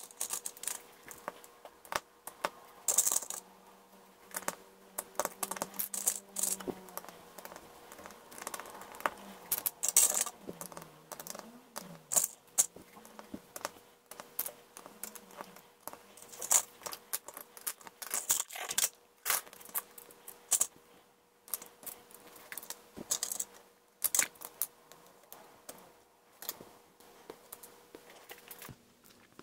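LEGO bricks clicking and rattling: small plastic pieces picked out of clear plastic sorting trays and snapped together into pole traffic lights, an uneven run of sharp little clicks and clatters over a faint steady hum.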